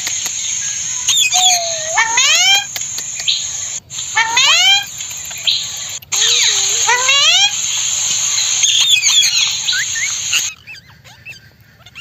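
Rose-ringed parakeets calling: rising, upward-sweeping calls repeated every second or two, over a steady high hiss that stops near the end.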